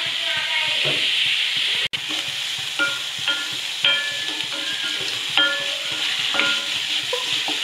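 Chopped onions and green chillies sizzling in hot oil in a metal kadai as they are stirred with a spatula. The spatula knocks against the pan about five times, each knock leaving a short metallic ring.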